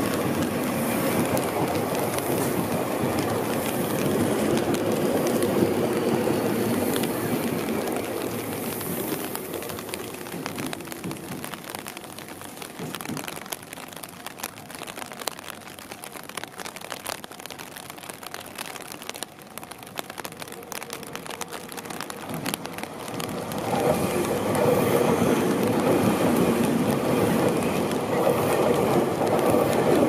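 Tobu Tojo Line electric commuter trains running over wet track: one train runs past and fades away over the first ten seconds or so, leaving a quieter stretch of rain hiss, then about 23 seconds in another train comes close past with a loud steady rumble of wheels on rail.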